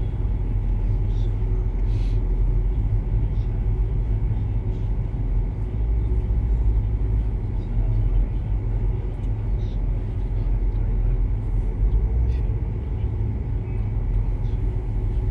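Steady low rumble and hum of background noise, with faint steady tones above it and a few faint clicks.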